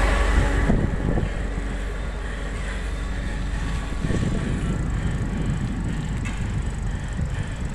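Wind buffeting the microphone of a phone carried on a moving bicycle, an uneven low rumble. A louder, fuller noise with a steady hum drops away in the first second.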